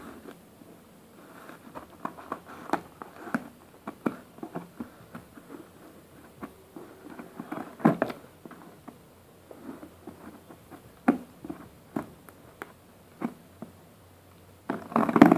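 Scissors cutting clear packing tape along the seam of a cardboard shipping box, with tape crinkling and the box being handled: irregular snips, clicks and rustles, with a louder run of cuts near the end.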